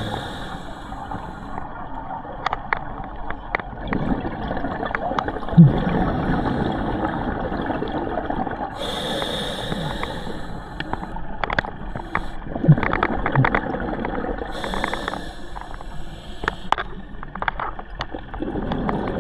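Scuba diver's exhaled bubbles from a regulator, heard underwater: a bubbly gurgle about nine seconds in and again about fifteen seconds in, over a steady noisy bed with scattered sharp clicks.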